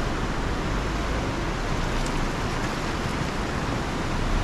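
Off-road 4x4 vehicle on the move, a steady low rumble under a constant rushing hiss.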